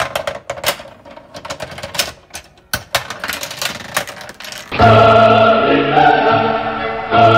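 Rapid plastic clicks, knocks and rattles as the toy board game's action contraption runs: balls roll and plastic figures tip over one after another. After about four and a half seconds, loud choral music comes in.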